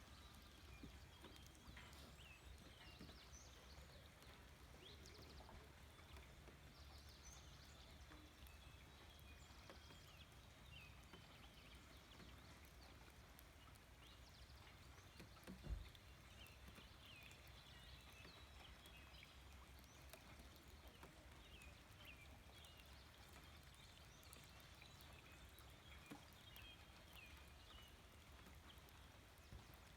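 Faint outdoor nature ambience with scattered short, high chirps over a low steady hum, and a single low thump about halfway through.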